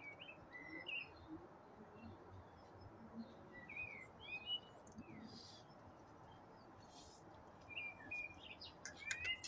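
Small birds chirping in short clusters of quick high notes, with two brief soft hissing sounds in between.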